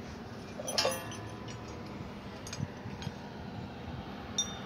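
Metal hand tools on the steel security cables of a Dero Fixit bike repair stand clinking against each other and the stand. One loud ringing clink comes about a second in, with lighter clinks near the middle and near the end.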